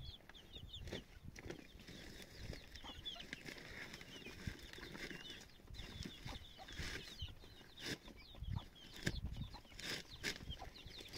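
Birds clucking and chirping in short high calls, with scattered knocks and rustling throughout.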